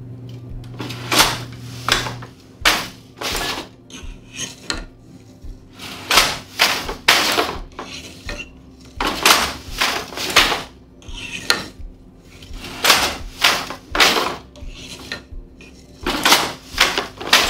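Wooden handloom being woven on: the beater and shed change give groups of two to four sharp wooden knocks and clacks about every three seconds as each pick of weft is laid and beaten in.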